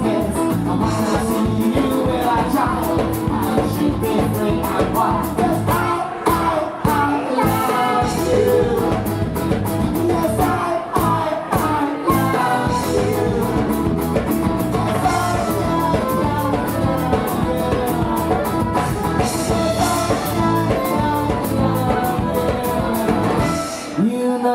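Live folk-rock band playing an instrumental stretch of the song with a steady drum beat, the music breaking off near the end.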